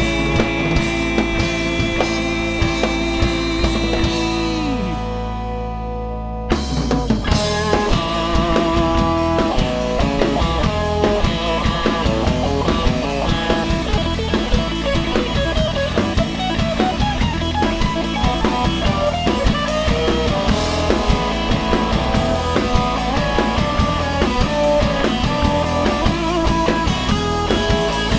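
Rock band playing live with drum kit, electric guitar and bass: a held chord rings and fades for about six seconds, then the drums and guitars crash back in and drive on with a steady beat.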